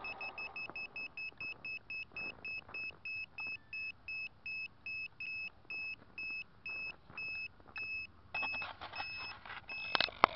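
A quadcopter's electronic beeper sounding a high-pitched beep over and over, about six a second at first, then slowing to about two a second as each beep grows longer. Rustling and a sharp click near the end.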